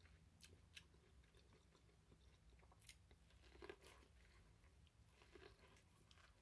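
Faint biting and chewing of an elote, corn on the cob with a crumbly red coating: scattered small crunches and mouth clicks, the loudest a little past halfway through, over a low steady hum.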